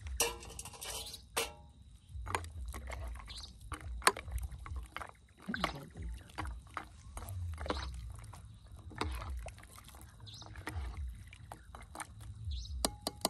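Scattered clinks and knocks of a lid and utensil against an aluminium cooking pot of rice and potatoes, with some sloshing of the cooking water inside.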